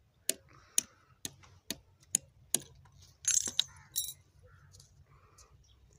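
Small hammer tapping on a steel plate, six light metallic taps about two a second, apparently straightening a small part, then a short metal rattle just past halfway as tools are handled.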